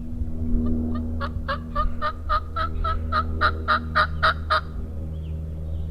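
A series of about fourteen evenly spaced hen turkey yelps, about four a second, growing louder as it goes: a turkey call worked by the hunter to draw in gobblers.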